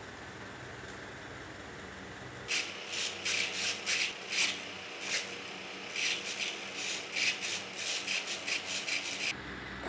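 Small RC servos buzzing in short, irregular bursts as the transmitter stick drives the model jet's control surfaces back and forth, starting about two and a half seconds in after faint room tone.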